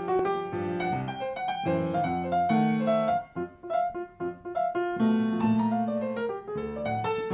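Background piano music: a light melody of struck notes over chords, thinning to a few single notes for a couple of seconds near the middle before the fuller playing returns.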